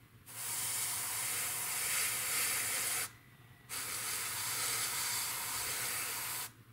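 Airbrush spraying metallic lacquer paint in two long bursts of steady hiss, with a short pause just past the halfway point.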